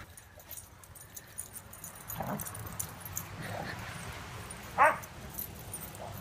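Dogs playing together give a few short yips, the loudest about three-quarters of the way through.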